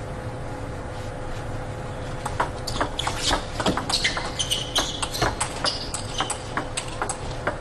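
Table tennis rally: the ball clicking sharply and quickly off the bats and the table, starting about two seconds in, with a few short high squeaks during the rally and a steady low arena hum throughout.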